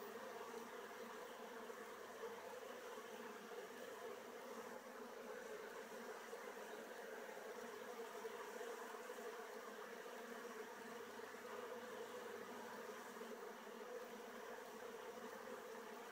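Honeybees buzzing at a hive entrance, many bees flying on and off the landing board, in a faint, steady hum.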